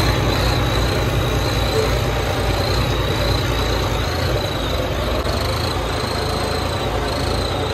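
Turbocharged John Deere 4x4 tractor's diesel engine running steadily under load while pulling a disc harrow, with a thin, high, steady turbo whistle that wavers slightly over a low engine rumble.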